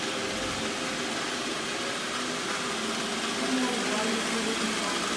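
iRobot Roomba robot vacuum running with a steady whir as it drives back toward its dock.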